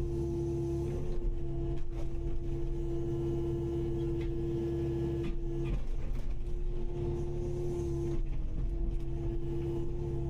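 Kubota KX080-5 excavator running under load: a steady diesel rumble with a high, even whine over it, which dips briefly twice, and a few faint knocks.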